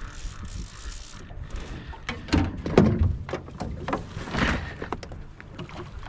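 Knocks and clunks on the hull of an aluminium boat as a bent trolling rod with a fish on is taken up. A steady whirring stops about a second in, before the knocks begin.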